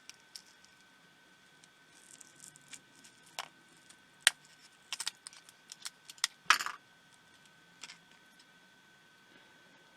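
Sharp small clicks and snaps of hand tools working on a pico projector's small plastic parts. The loudest crackling snap comes about six and a half seconds in.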